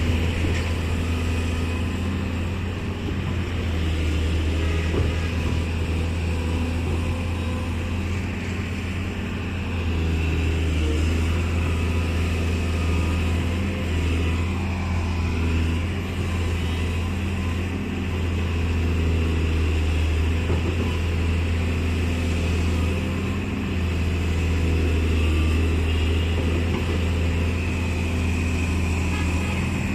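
Excavator's diesel engine running steadily with a deep low hum, swelling and easing a little every few seconds as it works.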